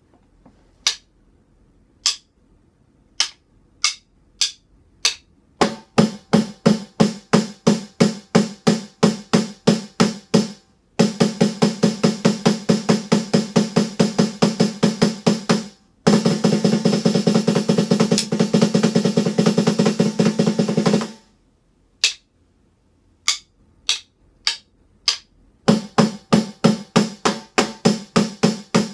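Snare sound of an electronic drum kit being struck with sticks during a snare test. It starts with single hits about a second apart, then steady strokes that speed up into a fast, dense roll for about five seconds. After a short gap come a few single hits again, and steady strokes near the end.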